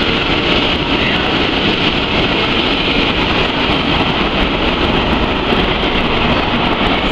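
Sofia Metro train running along the platform, a steady noise of wheels on rails with no marked rise or fall.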